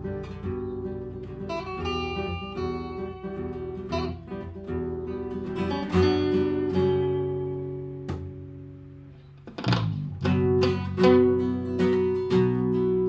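Acoustic guitar music over the credits: picked notes, dying away around eight seconds in, then louder strummed chords starting about a second and a half later.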